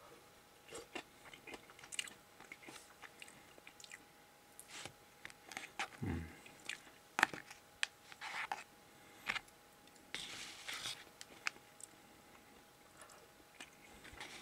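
Close-up eating sounds: soft, irregular chewing of grilled salmon and rice, with wooden chopsticks clicking and scraping against the plastic bento tray.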